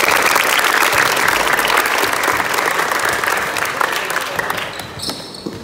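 A group of people clapping their hands in a burst of applause, dense and loud, tailing off about four and a half seconds in.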